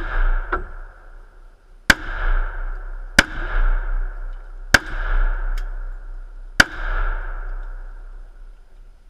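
Four shots from a 1911 .45 ACP pistol, fired one at a time at irregular intervals of about one and a half to two seconds. Each shot is followed by an echo that rolls away over about a second.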